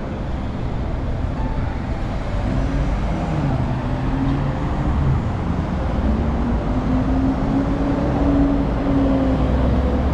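Road traffic at a city intersection: cars passing, over a steady low rumble. From a few seconds in, a vehicle's engine or motor hum rises in pitch as it speeds up.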